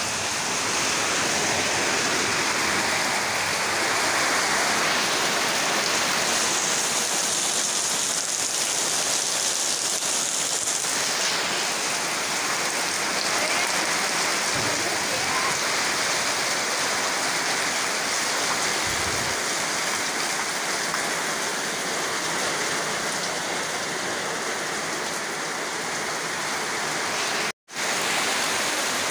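Heavy rain falling steadily, a dense even hiss of a downpour on the ground, roofs and trees. The sound cuts out briefly near the end.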